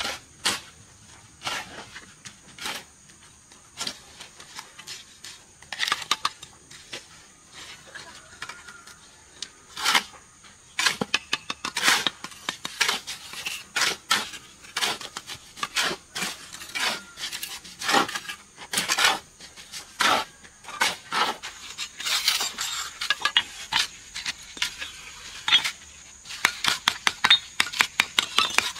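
An irregular series of light clinks and knocks of hard objects, coming faster and closer together in the second half.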